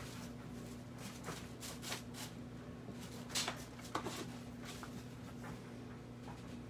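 Soft, scattered scrapes and ticks of a small hand tool working the design into damp tooling leather, and of the leather being slid and turned on a stone slab, over a steady low electrical hum.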